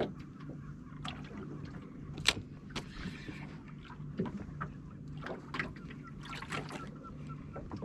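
Small boat's outboard motor running at low speed, a steady low hum, with scattered knocks and clicks of fishing tackle and the hull; one sharp click about two seconds in.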